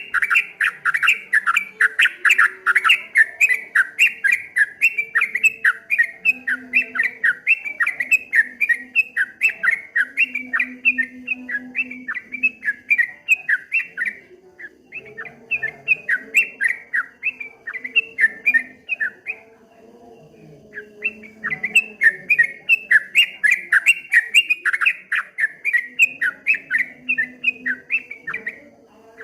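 Yellow-vented bulbul (trucukan) singing a rapid run of short, chattering notes in the rolling 'ropel' style, about three or four notes a second. The song breaks off briefly about halfway through and again a little later, then resumes.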